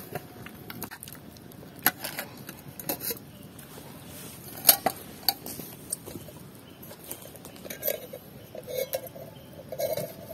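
Camp cooking gear being handled: irregular light clicks and knocks of pots and utensils, the sharpest a little before the middle.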